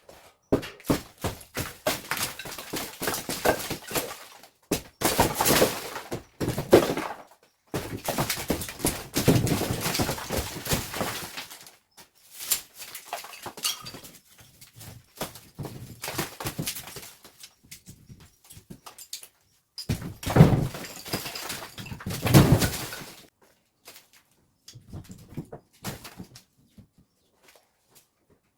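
Demolition of an old clay-earth house's walls: irregular knocks and thuds with crumbling, breaking debris, coming in clusters with short pauses, heaviest about two-thirds of the way through.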